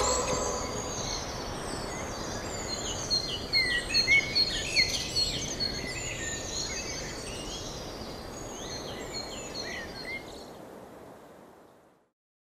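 Outdoor ambience: many small birds chirping over a steady hiss of background noise, the calls thickest a few seconds in, then everything fading out to silence near the end.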